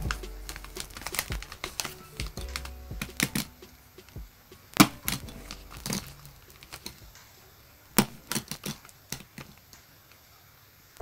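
Black plastic mailer bag being handled, folded and pressed flat on a desk: a run of crinkles, taps and sharp clicks, the loudest about five seconds in and again about eight seconds in. It thins out near the end. Faint background music is heard in the first few seconds.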